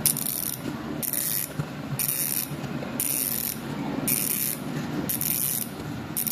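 Hassns Pro 7 bicycle hub's freehub clicking in a loud, high-pitched ratcheting buzz, in short bursts about once a second as it is spun again and again.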